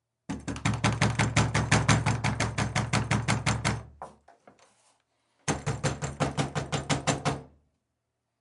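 Rapid, repeated pounding on a door, about seven blows a second, in two flurries: one lasting about three and a half seconds and tailing off, then, after a pause of about a second and a half, a shorter one of about two seconds.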